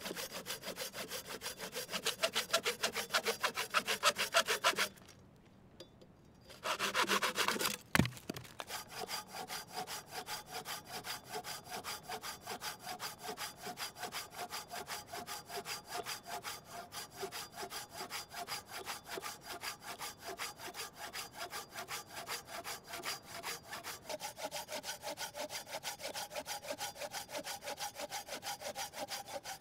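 Folding hand saw cutting through a wooden log with steady back-and-forth strokes, pausing briefly about five seconds in. A single sharp knock about eight seconds in.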